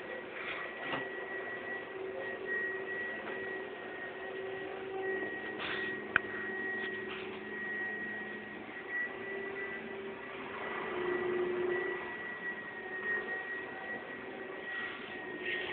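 Aquarium filter and pump equipment running: a steady hum with a thin high whine and a hiss, and one sharp click about six seconds in.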